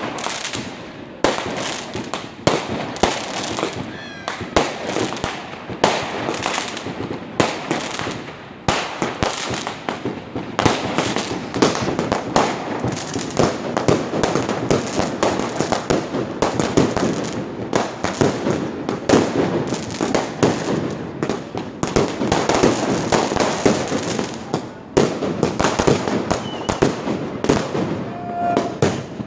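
Aerial fireworks going off in a dense barrage: near-continuous sharp bangs and crackling as shells and crackling stars burst overhead, easing briefly a couple of times.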